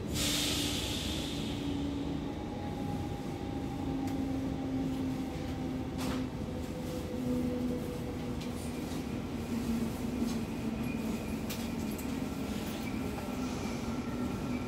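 Inside an NS SGMm Sprinter electric train slowing into a station: a steady running rumble with a motor hum that sinks slowly in pitch as the train slows. There is a short hiss at the start and scattered sharp clicks from about halfway on.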